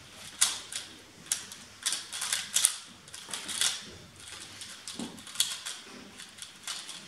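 A 3x3 speedcube being turned very fast by hand during a solve: quick, irregular runs of plastic clicks and clacks as the layers snap round.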